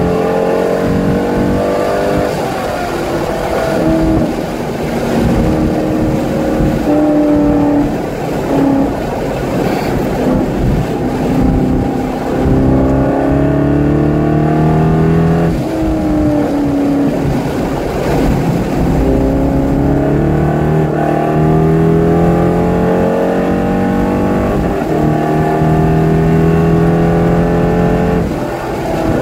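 Chevrolet Corvette C5's 5.7-litre V8 heard from inside the cabin at track speed. Its pitch climbs under acceleration several times and falls away sharply in between.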